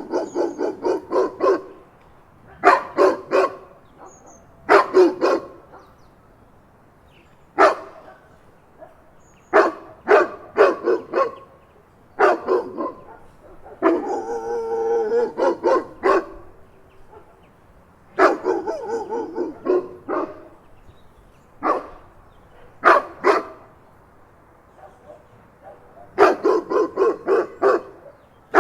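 Big dog barking in bursts of several rapid barks separated by short pauses, with a longer, more continuous run of barking about halfway through.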